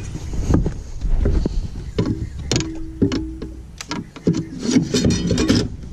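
Clicks and knocks of a bass boat's livewell lid and latch being opened by hand, over a low wind rumble on the microphone, with two short, steady low hums among the knocks.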